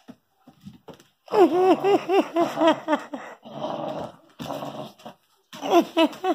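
A dog whimpering in quick runs of short rising-and-falling cries, with a rougher, growly stretch in between, as it struggles to pull down a toy stuck out of reach.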